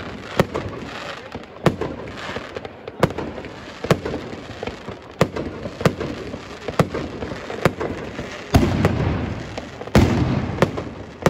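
Aerial fireworks shells bursting overhead in a steady barrage: sharp bangs about once a second over a rough hiss, with two heavier, longer bursts near the end.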